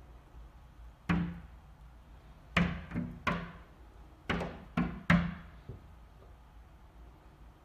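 A turkey knocking against window glass: about seven sharp knocks in uneven bursts, each with a short ringing tail.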